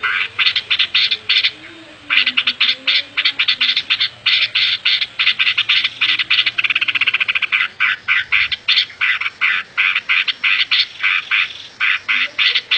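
A rapid series of sharp, pulsed animal calls, about four to five a second, with a short pause near the start and a quicker trill around the middle.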